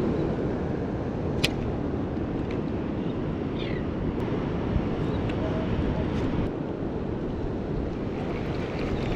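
Steady wind buffeting the microphone over the wash of the sea, with one sharp click about a second and a half in.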